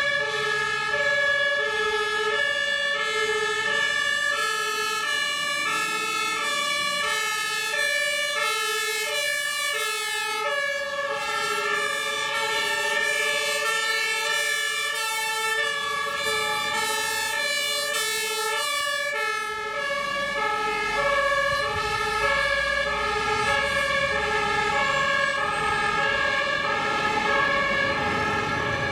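Fire engines' two-tone sirens sounding, each stepping back and forth between a lower and a higher note about once a second. More than one siren runs out of step with the others. A low vehicle engine rumble grows in under them in the second half.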